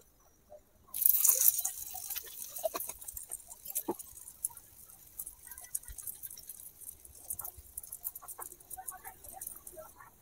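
Oil sizzling in a small iron pan over a wood fire. It starts suddenly about a second in as the oil is poured from a small bottle, then settles into a quieter sizzle with scattered crackles.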